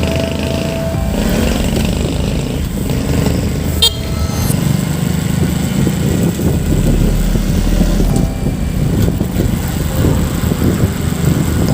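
Road vehicle engine and traffic noise running steadily, with a short horn-like toot about four seconds in.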